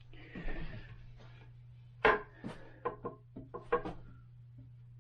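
Plastic-and-wood toilet seat and lid knocking and clacking against the porcelain bowl as they are handled and wiggled. There is a short rustle first, then a quick run of sharp knocks about two seconds in, over a steady low hum.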